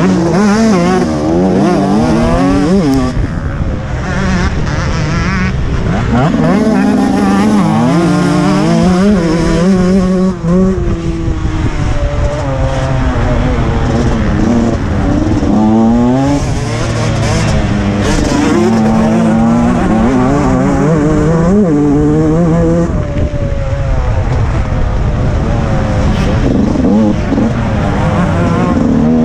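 2014 TM 125 MX two-stroke motocross bike's engine being ridden hard, revving up through each gear and dropping back at shifts and corners, over and over. Heard from the rider's helmet, with a steady rushing noise under the engine.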